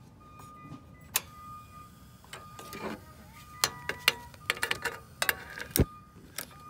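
Sharp clicks of a long utility lighter being triggered at the burner of a portable butane camp stove: one about a second in, then a quick run of them in the second half.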